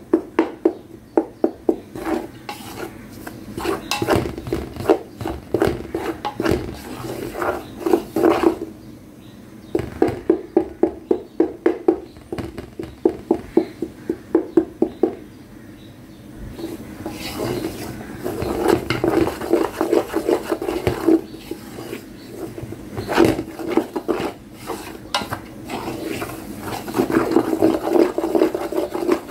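A spatula stirring and scraping crumbly roasted whole-wheat flour around a stainless steel bowl, in fast, even strokes of about four a second, with a couple of brief pauses.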